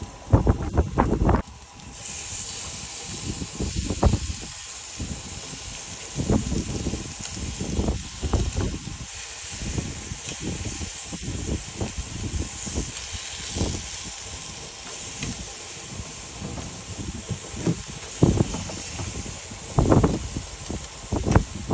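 Tuna steaks sizzling on a portable gas grill, a steady high hiss that sets in about two seconds in. Irregular low thumps and rumbles come and go over it, the strongest at the start and near the end.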